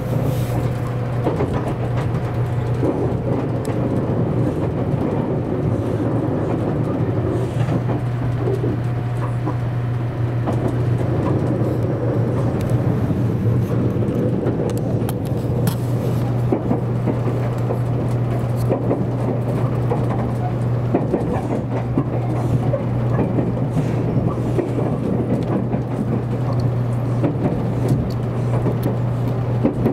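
Cabin running noise of a JR Kyushu 783 series electric limited express train: a steady rumble of the wheels on the rails under a constant low hum.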